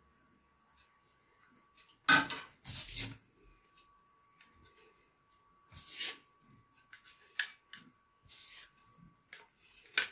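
Stiff dry lasagna sheets being handled and laid into a glass baking dish, giving sharp clacks and scrapes. The loudest comes about two seconds in, with lighter clicks and rubs scattered after.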